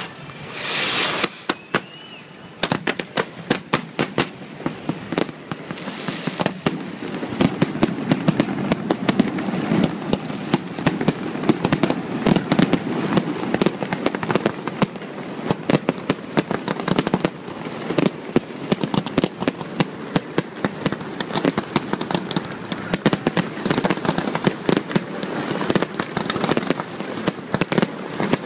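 Professional fireworks display: two short rushing whooshes at the start, then a dense, almost continuous barrage of sharp bangs and crackles from aerial shells bursting overhead.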